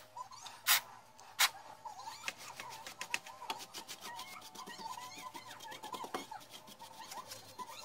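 A brush scrubbing caked dust off a TV's main circuit board: two loud strokes in the first second and a half, then a run of quick, lighter strokes.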